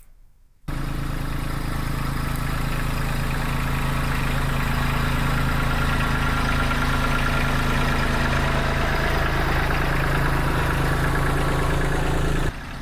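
Kubota LX tractor's diesel engine running steadily. It cuts in suddenly just under a second in and cuts off suddenly near the end.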